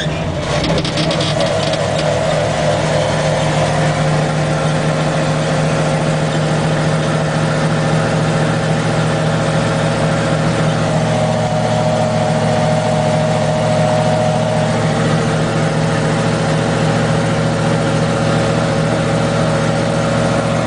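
Vehicle engine running steadily at a constant speed, its hum holding an even pitch, with a brief rattle in the first couple of seconds.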